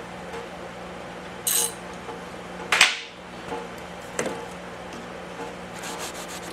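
Handling at the deck of a cast iron engine block over a steady background hum. A short hiss and a sharp clack come in the first three seconds, then a click, then quick rubbing strokes near the end as a shop rag wipes the deck.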